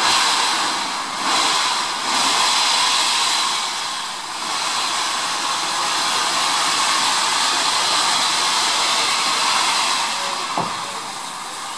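BR Standard Class 4 tank locomotive 80072 standing with steam hissing steadily from low at its front end near the cylinders, with a single short knock near the end.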